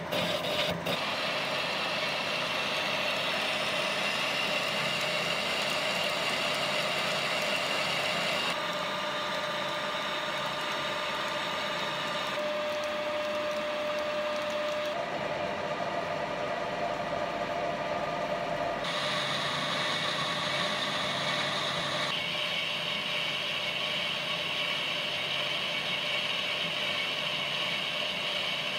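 Metal lathe running under load, its tool taking a heavy roughing cut along the outside of a steam pump cylinder liner, a steady cutting noise with a few held whining tones. The sound changes abruptly a few times.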